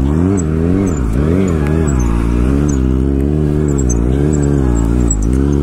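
Sport motorcycle engine held on the throttle through a wheelie, its revs rising and falling every half second or so as the rider feathers the throttle to hold the balance point.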